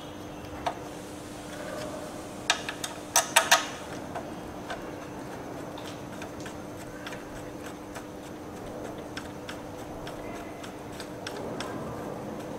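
Light, irregular metallic clicks and ticks as the mounting bolts of a motorcycle's Nissin front brake caliper are threaded in by hand. A brief cluster of louder clicks comes about three seconds in.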